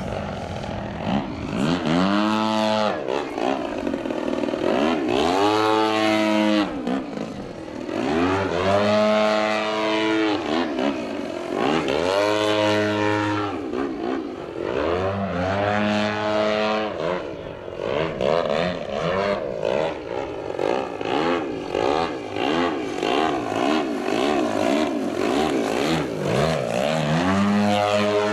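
Radio-controlled aerobatic airplane's motor and propeller, its pitch repeatedly surging up and dropping back every three or four seconds as the throttle is worked through 3D manoeuvres, then holding a steadier drone before surging again near the end.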